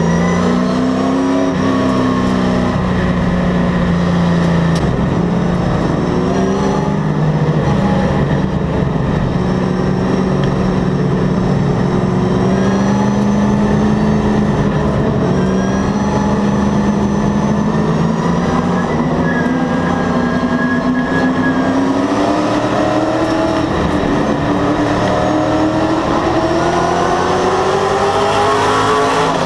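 Circle-track race car's engine heard from inside the cockpit, running at modest caution-pace revs with slow rises and falls in pitch. Over the last several seconds the pitch climbs steadily as the car speeds up for the green-flag restart.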